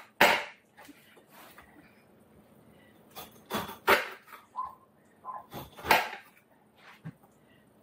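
Knife slicing the rind off a whole pineapple on a cutting board: a series of short, separate cutting strokes, most of them between about three and six seconds in.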